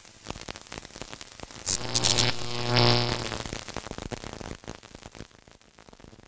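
Intro sound effect of crackling electric sparks and static, with a loud electrical buzz swelling up about two seconds in and then fading away.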